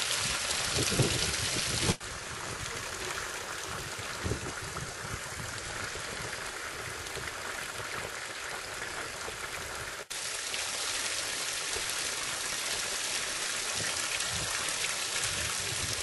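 Steady rushing hiss of a small trickling waterfall splashing onto rocks, with a few low thumps in the first seconds. The sound breaks off abruptly twice, about two seconds in and about ten seconds in, each time resuming as a similar steady rushing noise.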